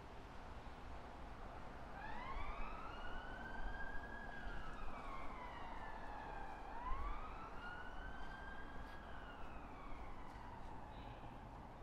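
Faint emergency-vehicle siren on a slow wail, starting about two seconds in and rising and falling twice, each sweep taking several seconds, over a low rumble.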